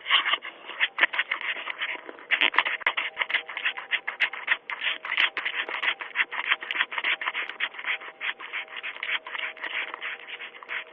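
Rapid scratching and rubbing against a Ring video doorbell, close to its microphone, going on without a break. It sounds thin through the doorbell's narrow-band microphone.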